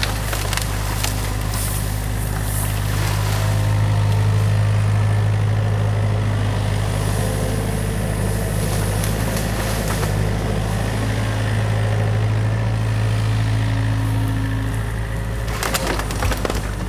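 New Holland mini excavator's diesel engine running steadily under hydraulic load as the arm lifts and swings, a little louder from about four seconds in. Near the end, sticks snap and crack as the bucket digs into the beaver dam.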